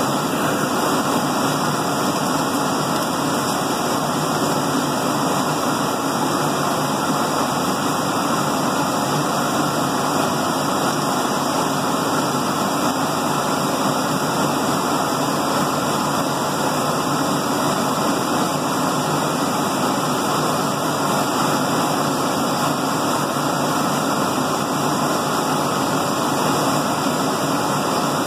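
Laser cutter running as it cuts a filigree pattern into a paper invitation: a steady, even rushing noise with no breaks.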